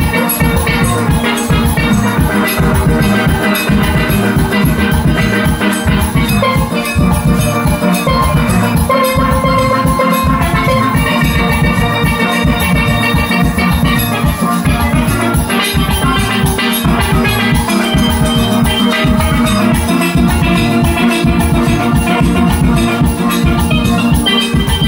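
Steel band playing a number together: many steelpans carrying the melody and chords over drums keeping a steady, driving beat.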